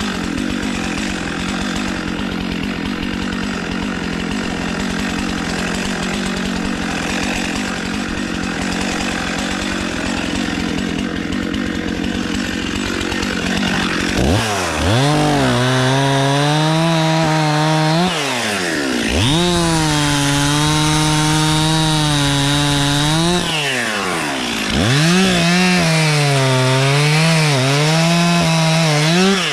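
Stihl MS 261 two-stroke chainsaw idling steadily, then opened to full throttle about halfway through and cutting into a pine trunk in three long runs. The pitch wavers under load and drops back briefly between runs.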